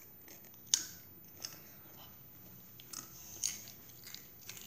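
Doritos tortilla chips being bitten and chewed: a handful of sharp crunches, the loudest about three-quarters of a second in.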